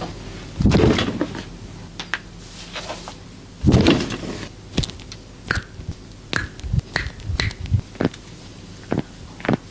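Cracking massage: a run of sharp snapping clicks, about a dozen, through the second half, with two longer, louder rubbing bursts before them, near the start and about four seconds in.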